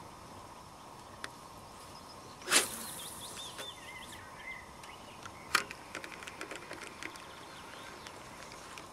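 Birds singing over still water, with a brief loud rushing sound about two and a half seconds in and a sharp click about three seconds later, followed by a scatter of small ticks.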